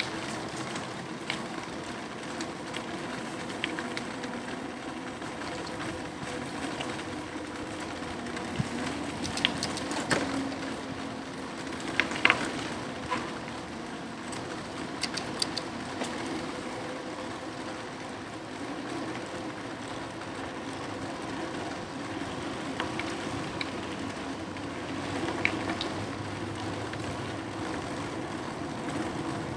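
Aostirmotor S17 electric bike under way: a steady running hum with road noise, broken by scattered sharp clicks and rattles.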